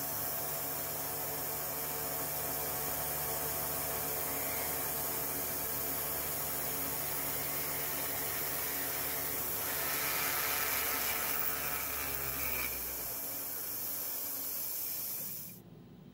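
CNC knee mill cutting gummy aluminium with an end mill, the spindle humming steadily under a strong hiss of compressed air blown at the cut. About ten seconds in the cut turns harsher for roughly three seconds, the block shifting in the vise, then the machine's tones drop and the sound cuts off sharply near the end.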